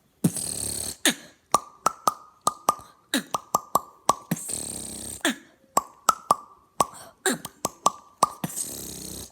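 Beatboxed mouth pops: a rhythmic run of sharp, hollow-pitched pops made with the lips, broken three times by a longer breathy hiss.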